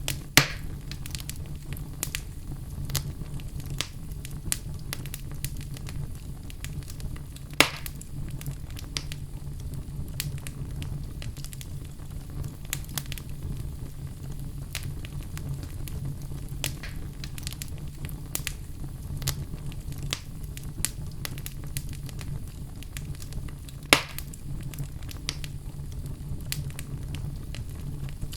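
Wood fire burning in a fireplace, a steady low rumble with frequent small crackles and three louder pops.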